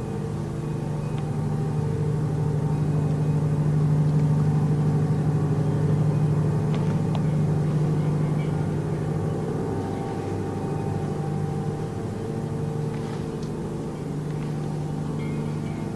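A steady low droning hum made of several held tones. It swells slightly a few seconds in and eases off later. This is the unexplained noise that ran without stopping for hours; the uploader says it sounds like an airplane but holds that it is not one.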